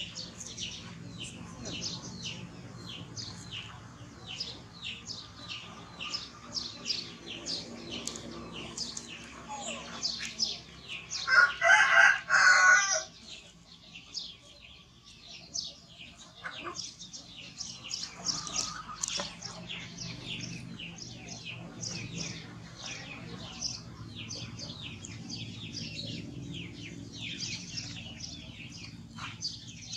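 A rooster crowing once, loudly, for about two seconds a little before halfway, over continuous chirping of small birds.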